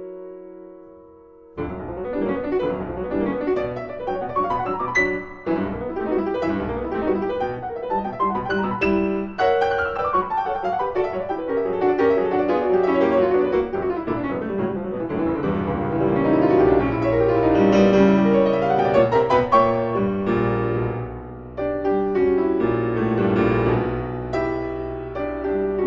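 Background solo piano music in a classical style. A held chord fades, then a fast, busy passage of notes begins about a second and a half in.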